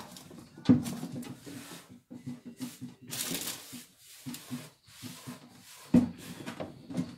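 Kitchen clatter as things are handled and set down on the counter during tidying: scattered knocks, two sharp ones about a second in and near 6 s, with a short rushing hiss around 3 s.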